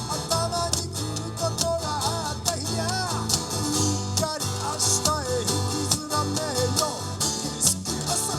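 A man singing a song to a strummed Gibson J-200 acoustic guitar, the voice gliding up and down over a steady strum.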